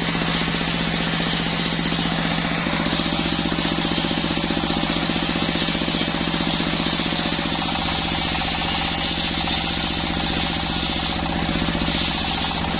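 Serkel circular-saw sawmill running steadily while sawing waru logs: a rapid, even knocking pulse under a high whine from the blade, with small shifts in pitch about two seconds in and near the end.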